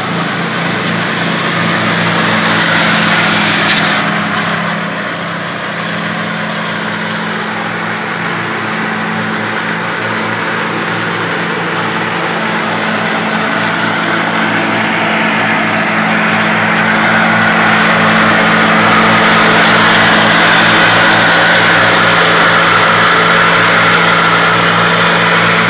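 Small riding-lawnmower engines running steadily, dipping briefly about five seconds in and getting louder through the second half.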